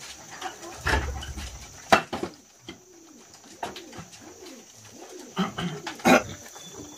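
Chickens clucking softly in low calls that rise and fall, with a few sharp knocks about one, two and six seconds in.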